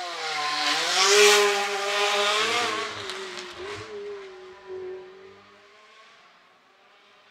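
Audi RS5 DTM race car pulling away from the start line at full throttle. The engine note dips, then climbs hard to its loudest about a second in, drops back and climbs again as it shifts up, and fades away over the last few seconds.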